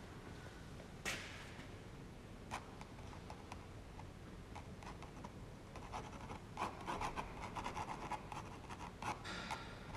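Ink pen scratching on rough 300 lb Arches watercolour paper in short sketching strokes: one stroke about a second in, then a busy run of quick strokes in the second half.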